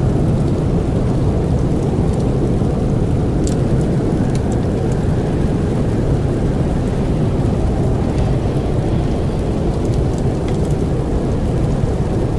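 Steady low roar of blizzard wind, with a few faint, scattered crackles of burning wood.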